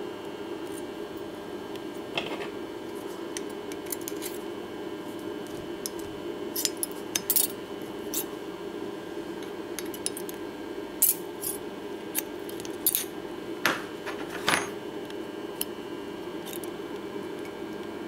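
Thin spot-welded metal strips clinking and scraping as they are handled and pried apart with pliers: a scattering of short, sharp metallic clicks over a steady background hum.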